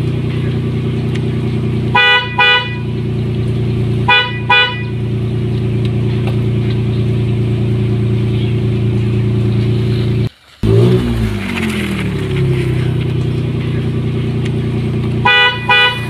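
A truck engine sound idling steadily, broken by short double horn toots three times. The engine cuts out for a moment about ten seconds in, then starts again.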